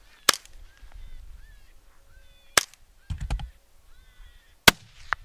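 Three scoped-rifle shots about two seconds apart, follow-up shots at a wounded coyote, with a brief rattle of handling between the second and third and a smaller crack near the end. Faint short high-pitched calls sound between the shots.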